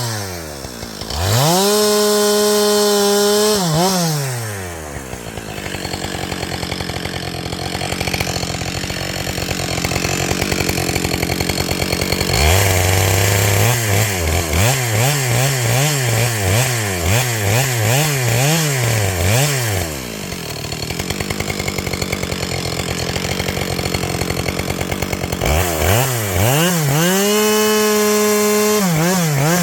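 Two-stroke chainsaw revved to full throttle and held there for a few seconds, then dropped back to idle. In the middle comes a run of quick throttle blips, the pitch rising and falling more than once a second, then idle, and near the end it is held at full throttle again. It is cutting logs with a freshly hand-sharpened chain that is still rusty.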